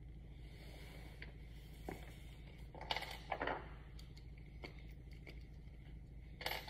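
Faint steady low hum with a few brief scraping and clicking noises, the loudest about three seconds in and another near the end.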